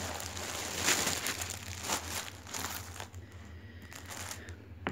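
Plastic bag crinkling as it is handled, most busily in the first three seconds, then fainter rustling with a short click near the end.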